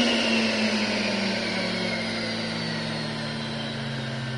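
VacuFlo 560 central vacuum power unit winding down just after being switched off, its motor whine falling steadily in pitch and fading.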